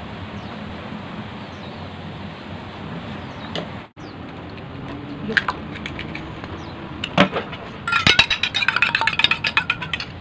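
A steady hiss, likely from the gas burner under the simmering soup pot. After a cut, an egg is cracked on a small stainless steel bowl with a few sharp taps, then beaten briskly with a fork against the bowl, a rapid clinking over the last two seconds.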